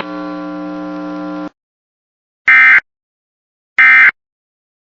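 A steady buzzing tone for about a second and a half. After a pause come two short, loud, high warbling data bursts about a second and a quarter apart: the Emergency Alert System's end-of-message (EOM) SAME data tones that close the alert.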